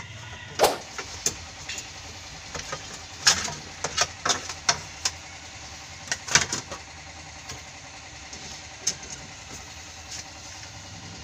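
Sharp plastic clicks and knocks as the steering column's plastic shroud is unscrewed and pulled off, with a cluster of them in the first seven seconds and a couple more later. A steady engine-like hum runs underneath.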